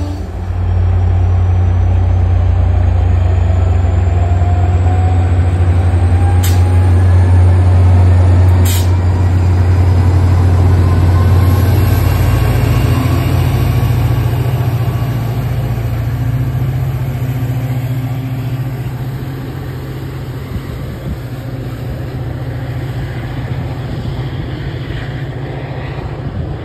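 MBTA commuter rail diesel locomotive running, a loud steady low drone that changes pitch about halfway through and then gets somewhat quieter. Two short sharp clicks stand out a few seconds in.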